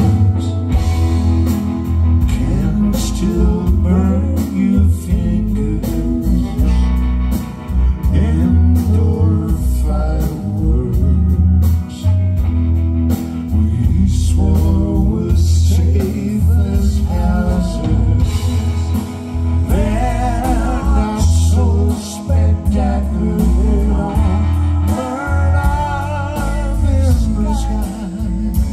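Live rock band playing a mid-tempo song: electric and acoustic guitars, bass guitar and drums, with a wavering melody line on top.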